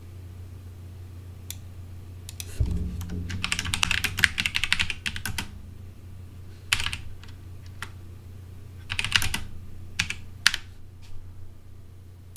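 Typing on a computer keyboard: a fast run of keystrokes from about two to five and a half seconds in, then short runs and scattered single keystrokes, over a steady low hum.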